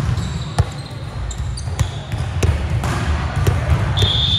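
Basketball bouncing on a gym floor in sharp, irregular knocks over a murmur of voices in a large hall, with a high steady tone, like a whistle or shoe squeak, starting near the end.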